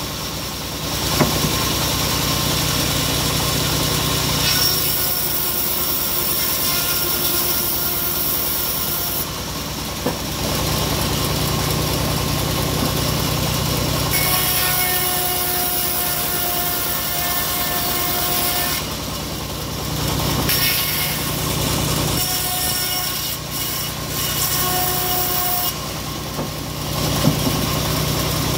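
Homemade bandsaw sawmill cutting mahogany planks: the band blade rasps through the wood over the steady running of its stationary drive engine. The cutting noise drops out briefly a couple of times between passes while the engine keeps running.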